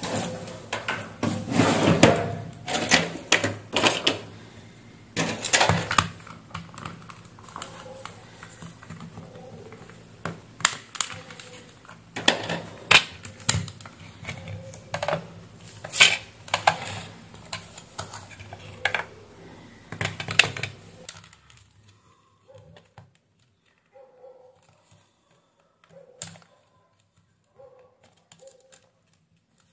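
Plastic housing of a Philips Norelco 7810XL electric shaver being pried apart by hand, its snap-fit clips and shell giving an irregular series of sharp clicks and snaps. The snapping thins out to a few faint clicks about two-thirds of the way through.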